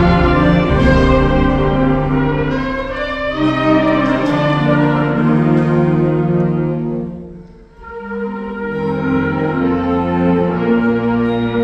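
High school concert band of woodwinds and brass playing slow, sustained chords. About seven seconds in the sound fades almost away, then low notes re-enter and the band builds again.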